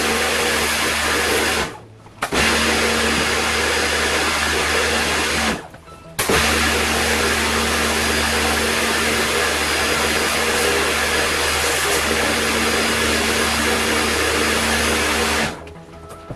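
Electric pressure washer spraying, a steady hiss over a low motor hum. It stops twice for about half a second and cuts off near the end.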